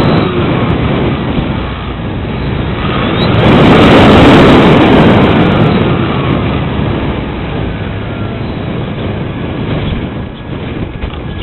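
Strong gusting wind buffeting the microphone, a dense rumbling roar that swells to its loudest about four seconds in and then eases off.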